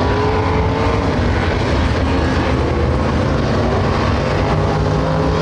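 Several street stock race cars running hard around a dirt oval: a loud, continuous engine din, with engine pitches rising and falling as the cars come past.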